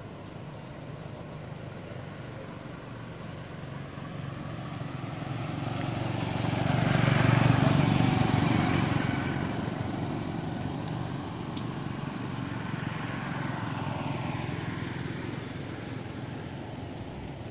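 A motor vehicle driving past on the road, its engine and tyre noise rising to a peak about seven seconds in and then fading away.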